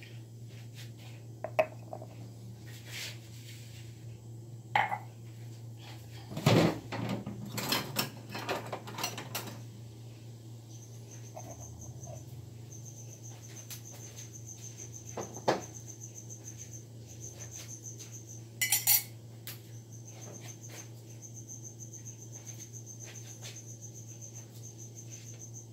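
Ceramic mugs and a metal spoon clinking and knocking on a kitchen counter while coffee is made, busiest from about six to nine seconds in, with single clinks before and after. A steady low hum runs underneath.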